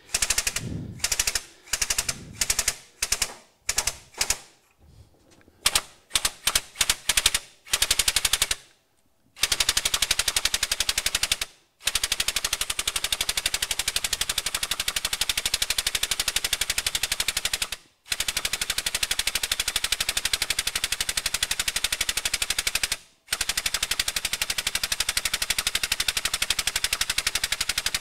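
Powered hydraulic pump of a shop press, chattering rapidly as the ram forces a seized mower spindle shaft down out of its housing. It comes in short bursts for the first eight or nine seconds, then runs in long stretches of several seconds, stopping briefly three times.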